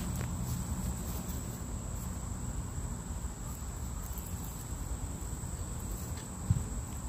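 Insects trilling outdoors in one steady, high-pitched tone, over a low rumble, with a brief knock about six and a half seconds in.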